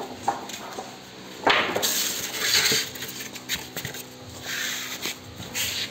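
Wooden planks being handled: a sharp knock of boards striking each other about a second and a half in, then several bursts of scraping as planks slide against one another, over a faint steady hum.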